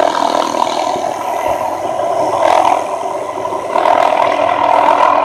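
Tree-trimming helicopter with its hanging air saw running: a steady mechanical whir and clatter that dips slightly about halfway through and comes back up a second later.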